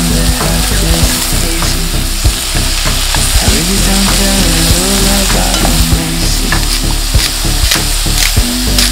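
Sliced onions and beech mushrooms sizzling as they fry in a pot, with a spatula stirring them and ticking against the pot now and then.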